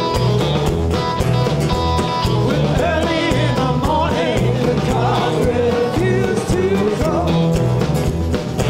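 Live blues-rock band playing: acoustic guitar, bass and drums keeping a steady groove, with a man singing the lead vocal over it.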